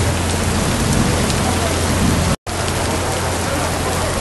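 Heavy rain falling steadily, splashing on wet ground and tents. The sound cuts out for an instant just past halfway, then the rain carries on.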